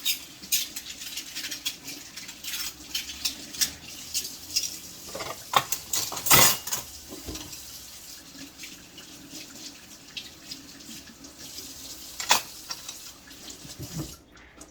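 A kitchen tap runs while dishes clink and knock under the stream, with one louder clunk about six seconds in. The water shuts off just before the end.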